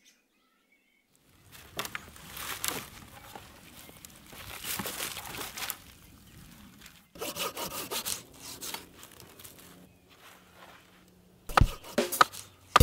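Green apple-wood branches being handled and shifted against each other, wood rubbing and scraping over leaf litter. Near the end, a few sharp, loud knocks as a short log is struck to split it on a chopping block.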